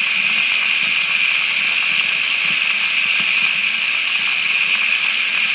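Steady stream of water pouring down a small pocket sluice and splashing into a plastic tub, with a constant rushing sound.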